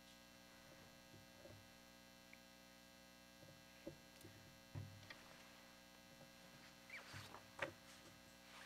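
Near silence: a steady electrical hum, with a few faint clicks and knocks, the loudest a little before the end.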